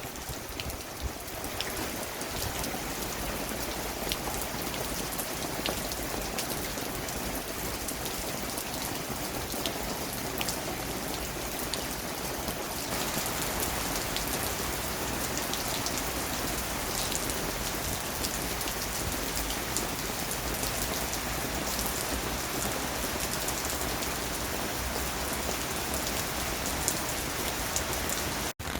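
Heavy rain pouring down in a steady downpour, with a dense patter of drops. It cuts out for an instant near the end.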